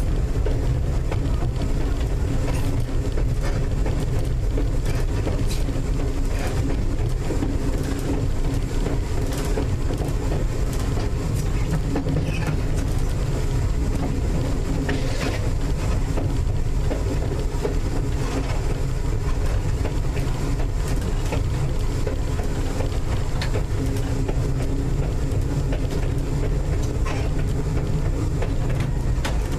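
North Shore Line 749, an electric interurban car, running along the track as heard from inside the car. It makes a continuous rumble with a steady low hum, and scattered clicks and knocks from the wheels on the rails.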